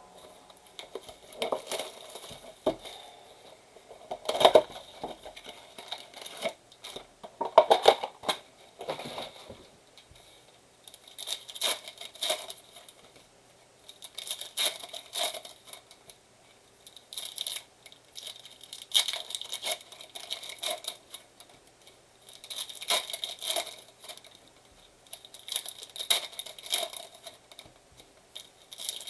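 A trading-card blaster box and its foil card packs being torn open by hand, with crinkling wrappers, in irregular bursts of tearing and rustling.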